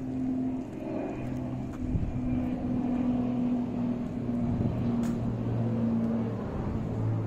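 Street background noise with the steady low hum of a running motor.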